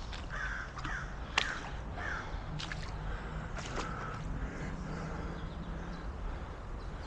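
Crows cawing several times in short calls, with a few faint clicks.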